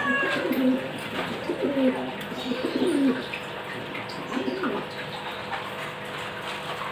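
A dove cooing: a run of low, rising-and-falling coos over the first three seconds and one more about four and a half seconds in.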